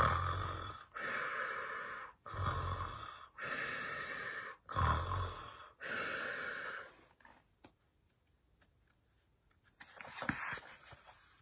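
A woman imitating snoring: three snores about two and a half seconds apart, each a low rattling intake followed by a breathy exhale. A pause follows, with a brief faint sound near the end.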